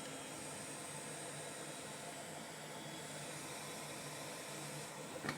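Steady, faint hiss with a low hum under it and no distinct events, with a small tick near the end.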